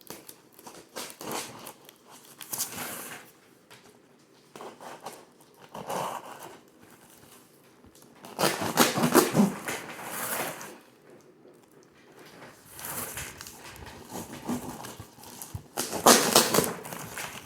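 Shipping packaging being handled: irregular rustling and crinkling with what sounds like tearing, in uneven bursts, the loudest about halfway through and again near the end.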